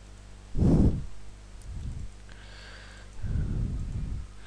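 Breath blowing on a close microphone: a loud puff about half a second in and a longer, softer one near the end. A small mouse click comes in between.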